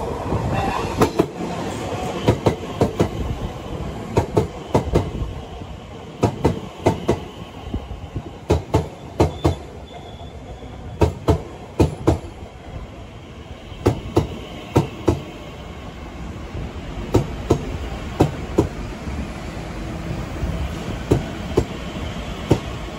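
Elizabeth line Class 345 electric train running past along the platform, with a steady rumble and sharp wheel clicks in quick pairs as the bogies cross the rail joints.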